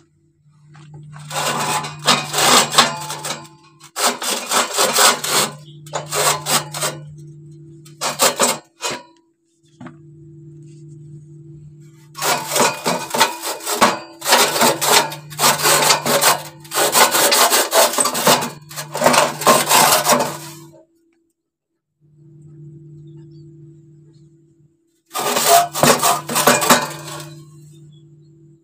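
Metal scraping of carbon deposits from a fogging machine's exhaust silencer: rapid rasping strokes in spells of a few seconds, with pauses between. A faint steady low hum sits under the pauses.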